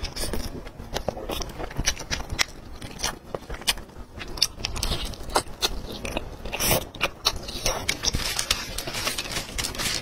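Close-miked mouth sounds of a person biting and chewing soft roast chicken, with many sharp wet clicks and smacks as the meat is pulled off with the teeth.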